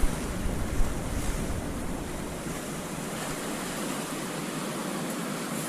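Steady rushing of water, with wind buffeting the microphone for the first couple of seconds before it eases.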